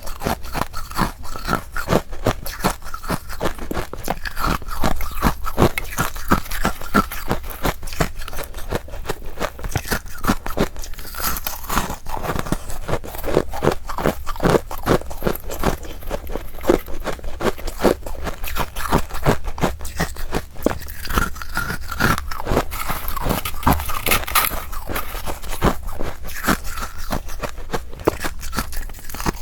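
Close-miked biting and chewing of freezer frost ('snow ice'): a dense, continuous run of crisp, powdery crunches.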